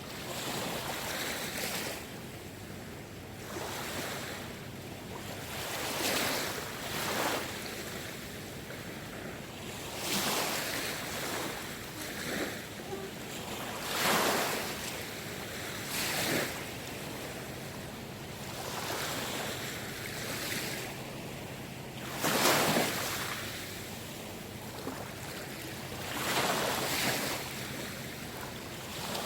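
Small waves of the Seto Inland Sea washing in one after another, each rush swelling and fading every two to four seconds, with a little wind on the microphone.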